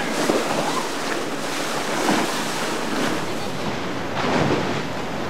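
Surf and rough water, with wind buffeting the microphone. The noise rises and falls in repeated surges.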